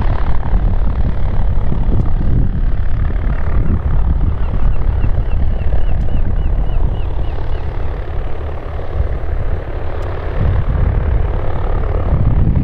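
Piper PA-38 Tomahawk's four-cylinder piston engine and propeller running at low power as the trainer taxis, a steady low rumble.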